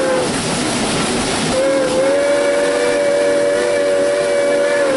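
Steam whistle of Southern Pine Lumber Co. locomotive #28, heard from inside the cab as the engineer pulls the cord. One blast ends just after the start, and a long steady blast begins about a second and a half in and holds, over the steady hiss and running noise of the engine.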